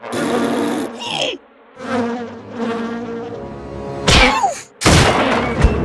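Cartoon sound effects: a buzzing drone like an insect swarm, then two loud whooshes about four and five seconds in.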